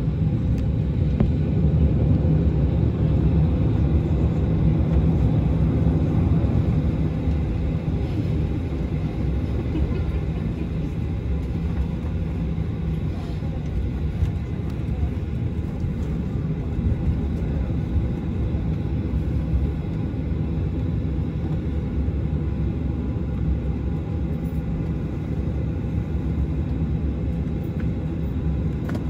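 Cabin noise inside a Boeing 737-700 taxiing after landing: a steady low rumble from its CFM56-7 engines at idle and the airframe rolling on the taxiway, easing slightly about seven seconds in.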